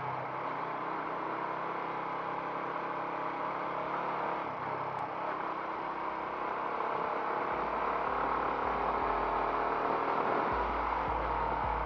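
Motorbike engine running steadily while riding, with road and air noise; a low rumble comes in from about halfway.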